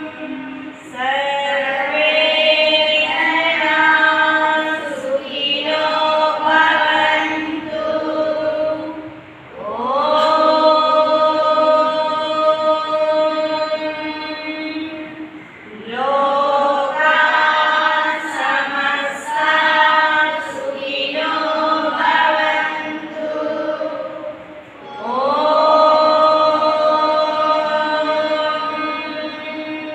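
A woman and a group of children chanting a prayer together in unison, in long sung phrases with short pauses for breath between them.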